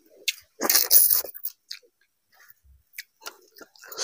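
Close-miked chewing of a mouthful of rice and fish curry, in a few irregular loud bursts, the loudest about a second in.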